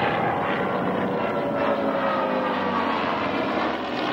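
Bell P-63 Kingcobra fighter's Allison V-12 engine and propeller as it flies past in a display, a steady engine sound whose pitch slides down as it goes by.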